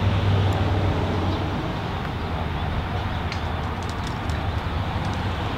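Steady outdoor rumble and hiss with a low hum, like traffic noise, strongest near the start and again in the middle.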